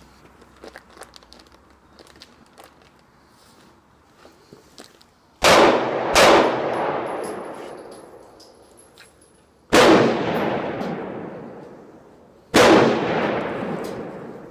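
Four gunshots at a shooting range: two close together about five seconds in, then one more about three and a half seconds later and a last one three seconds after that. Each shot rings out in a long echo that fades over about two seconds. Faint small clicks come before the first shot.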